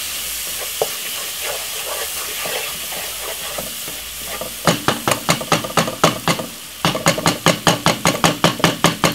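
Seasoned chopped onions sizzling in oil in a nonstick pot as a wooden spoon stirs them. From about halfway in, the spoon scrapes and knocks against the pot in quick strokes, about five a second, with a brief pause in the middle.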